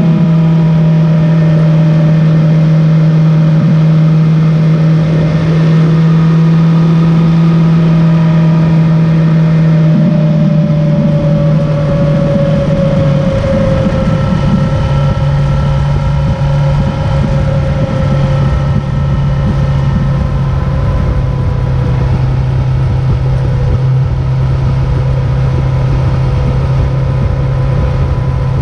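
A vehicle engine running steadily at speed, loud and constant. About a third of the way in, its pitch eases down a little, as if slowing slightly, then holds steady again.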